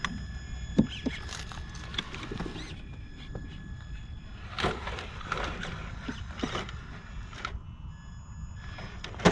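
Traxxas TRX-4 1/10-scale RC crawler driving over wooden ramps: its electric motor and gears give a steady whine in a few fixed high tones, which shift a little over a second before the end. Over the whine come scattered knocks and thumps of the tyres and chassis on the boards, the sharpest about a second in and a cluster near the middle.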